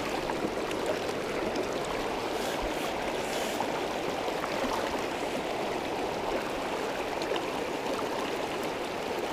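Shallow creek water rushing steadily over rocks, an even, unbroken wash of water.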